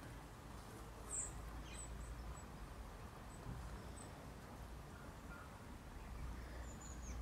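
Faint outdoor ambience: a steady low rumble with a few brief, high-pitched chirps, one about a second in and a short falling one near the end.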